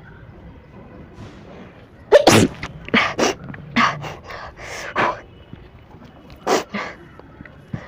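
A person sneezing several times in quick succession, the nose tickled with grass, starting about two seconds in, with the first sneeze the loudest.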